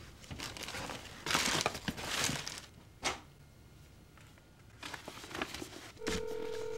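Paper pages of an old phone book rustling and crinkling in several short bursts as they are turned. Near the end a steady telephone ringback tone starts: the call is ringing through.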